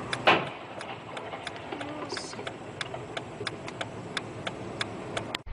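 Turn-signal relay inside the car clicking steadily, about three clicks a second. About a third of a second in comes a single loud bang, the impact of a car collision at the intersection.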